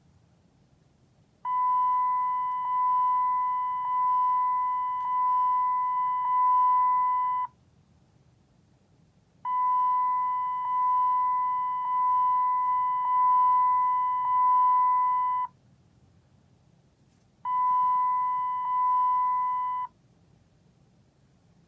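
Volkswagen Routan seatbelt warning chime: a single electronic ding, struck about once every 1.2 seconds and fading after each strike, in runs of five with pauses of about two seconds between them; the last run stops after two dings.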